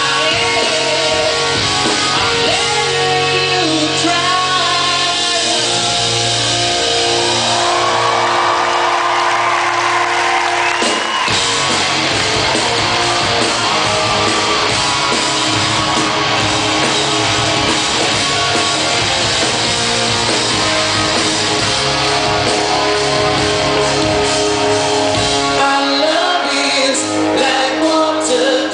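Live rock band playing: a male lead vocalist singing over electric guitar and bass guitar, heard through the reverberant hall from among the audience.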